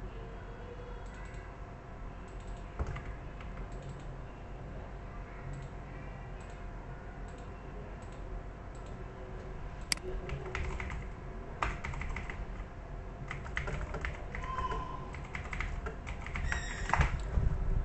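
Computer keyboard typing, scattered clicks at first that grow busier about halfway through and are loudest near the end, over a low steady hum.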